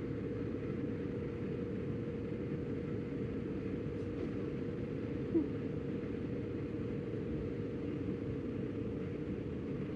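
Steady hiss with a faint hum, and about halfway through one brief, squeaky rising 'puu': a sleeping Scottish Fold cat's fart-like snore.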